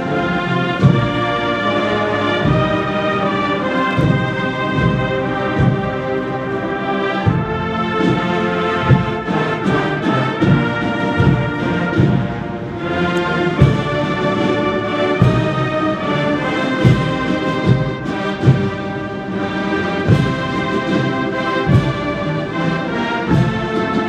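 Massed military brass band playing a slow, stately piece, with a steady drumbeat a little under a second apart under sustained brass chords.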